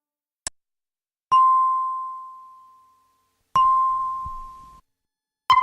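A bell with one clear pitch struck three times after a faint click. The first ring fades out slowly, the second is cut off after about a second, and the third is short.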